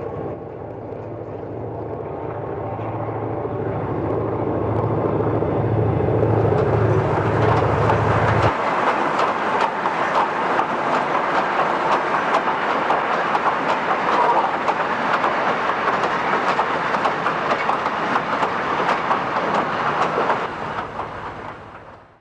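A diesel-hauled goods train: the locomotive's engine throbs as it draws nearer and grows louder, its low note stopping abruptly about eight seconds in. A long rake of goods wagons then rolls by with a steady clickety-clack of wheels over the rail joints, fading away near the end.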